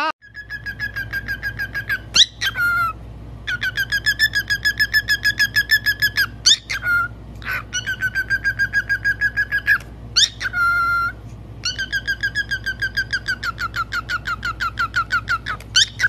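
Cockatiel calling in long runs of rapid, evenly repeated chirps, about seven a second, all on one pitch. The runs are broken three times by a short rising whistle and a brief lower note.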